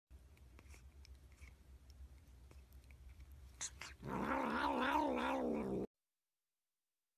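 Cat yowling: one drawn-out call with a wavering pitch about four seconds in, lasting under two seconds and cut off abruptly, after a few faint ticks.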